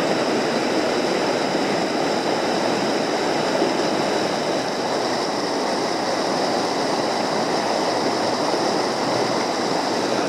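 Mountain creek rushing over a small rocky cascade into a pool: a steady, even rush of water.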